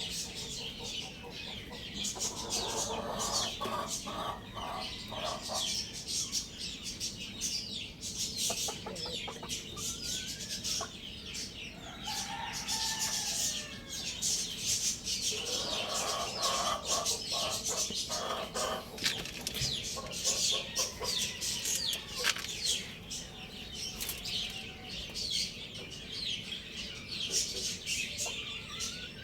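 Chickens clucking and calling in several bouts of a second or two each, over constant chirping of many small birds.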